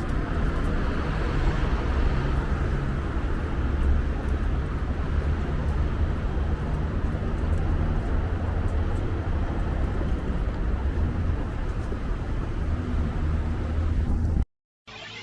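Strong wind buffeting the microphone, a steady low rumble with street and traffic noise beneath it. The sound cuts off abruptly near the end.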